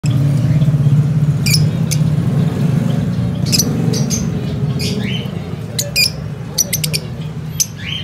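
A flock of Fischer's lovebirds giving short, sharp chirps and squawks, scattered irregularly, over a low steady hum that is loudest in the first few seconds.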